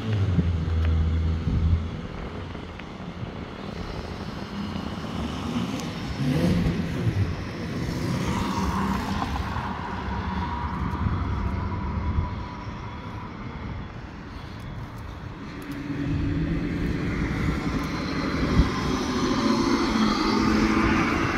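Road traffic passing through an intersection: a vehicle's engine hum fades over the first two seconds, then traffic noise continues more quietly. Near the end a heavy-duty pickup truck towing a trailer grows louder as it drives past close.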